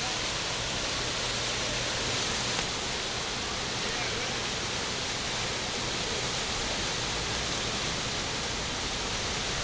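Steady rush of whitewater rapids, the river pouring over a standing wave.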